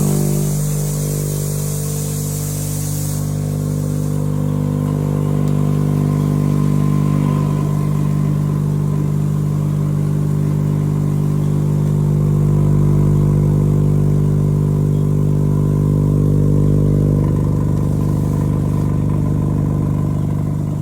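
A motor running steadily with an even hum; its sound shifts slightly about seventeen seconds in.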